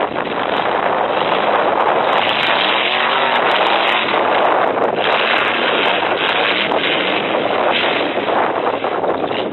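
Demolition-derby trucks' engines running hard, a loud continuous din with wind buffeting the microphone; about three seconds in, one engine's pitch swells and falls as it revs.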